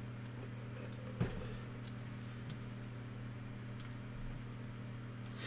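A steady low hum, with one sharp click about a second in and a few faint taps.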